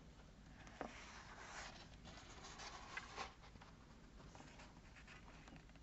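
Faint rustle of a page of a hardcover picture book being turned and smoothed down, with a couple of soft taps.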